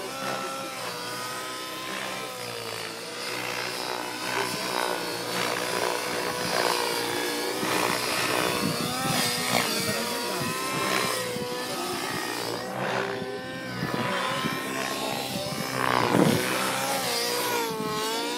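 Align T-Rex 700N nitro RC helicopter in aerobatic flight: its two-stroke glow engine and rotor running steadily, the pitch wavering up and down as it manoeuvres, loudest near the end.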